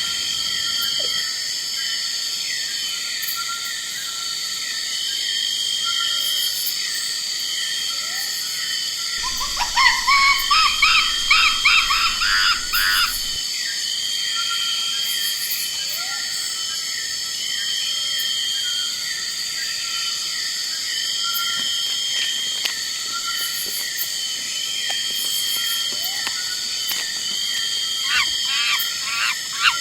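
Forest ambience: a steady chorus of insects with short high calls repeating every couple of seconds. About nine seconds in, a burst of rapid, rising-and-falling animal calls lasts about four seconds.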